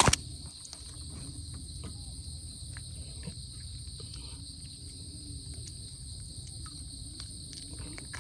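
A steady, high insect chorus trilling without a break, over a low rumble, with a sharp knock right at the start and a few small clicks.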